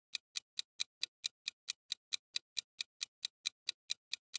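Clock-like ticking of a quiz countdown-timer sound effect: short, even ticks at about four and a half a second.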